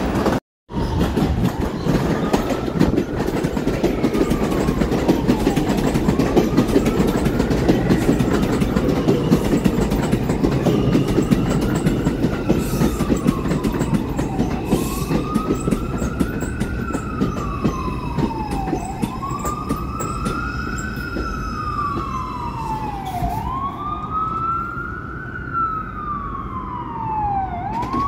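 New York City Subway R142-type train rumbling and clattering on the rails beside the platform, the rumble easing over the first half. Over it, an emergency-vehicle siren wails up and down every three to four seconds, growing louder toward the end.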